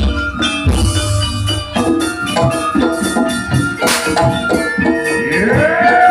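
Jaranan music played loud: fast, even percussion strokes over steady held tones, with a deep low stroke about a second in. Near the end a bending melodic line rises and falls over the rhythm.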